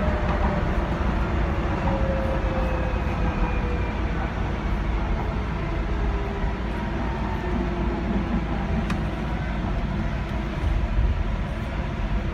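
Docklands Light Railway train slowing into a station, heard from inside the front of the carriage: a low rumble of wheels on the track under a whine from the electric traction drive that falls slowly in pitch as the train brakes.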